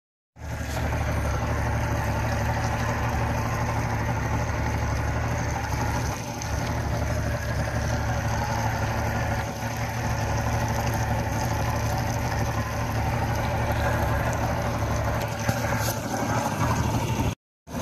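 Boat engine running steadily at low trolling speed.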